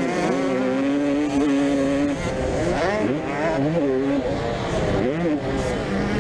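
Two-stroke motocross bike engine under race throttle, held at a steady high pitch for about two seconds, then falling and climbing again several times as the rider rolls off and back on the throttle.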